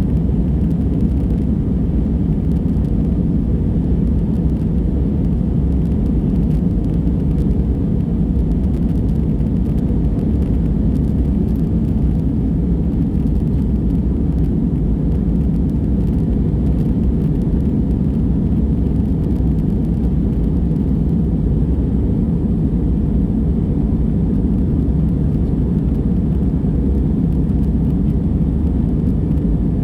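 Airbus A320 engines and airflow heard inside the passenger cabin as a steady, even low rumble.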